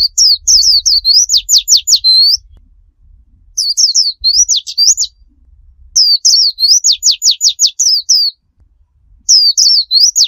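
Pleci (white-eye) singing its fast 'tembakan' song: loud bursts of high, quick whistled notes, each phrase running into a string of rapid down-slurred notes, repeated about every three seconds with short pauses between.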